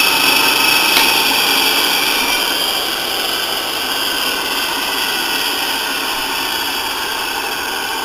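Brook 2 hp single-phase capacitor-start induction motor running unloaded at full speed after a soft-start ramp, with a steady electric hum and whine.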